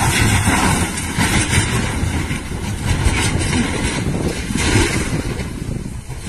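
Rumbling and several dull knocks of a small truck tumbling down a steep hillside, with the loudest knock a little before the end.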